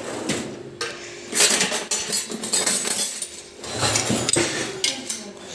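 Cutlery clattering in a kitchen drawer as spoons are rummaged for and picked out, a run of sharp metal clinks and rattles with louder clatters about a second and a half in and again near four seconds.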